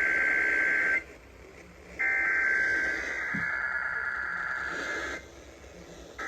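Emergency Alert System SAME header: bursts of shrill two-tone digital data around 1.5–2 kHz. One burst ends about a second in, a second one runs about three seconds, and a third begins near the end, each after a pause of about a second. This is the coded header that opens an EAS Required Weekly Test.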